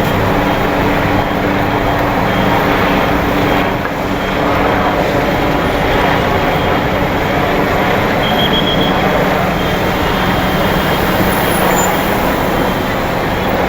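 City street traffic noise, with vehicle engines running and a steady roar of road noise.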